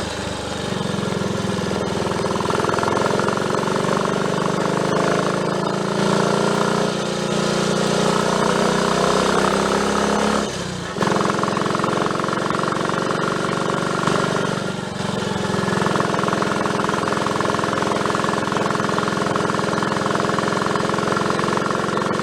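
Triumph Tiger Cub single-cylinder four-stroke engine running under way, its pitch shifting as it pulls. It cuts out briefly about halfway through, picks up again, and dips once more a few seconds later.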